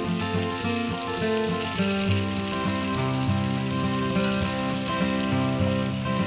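Whole tilapia shallow-frying in hot oil in a non-stick frying pan, a steady sizzle throughout. Background music plays over it.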